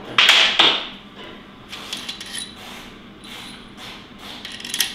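Metal tools and engine parts being handled: a loud rattling clatter shortly after the start, then a few separate sharp metallic clinks.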